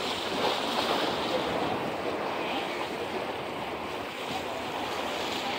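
Steady wash of sea surf breaking against a rocky shoreline, with some wind.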